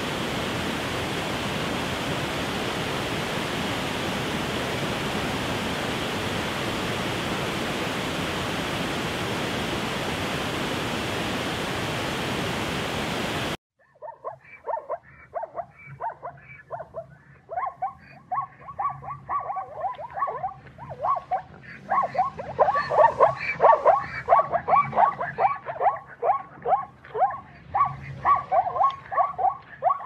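Steady rushing water noise that cuts off abruptly about halfway through. Zebras then start barking in quick, repeated yelping calls, several a second, growing louder and denser near the end.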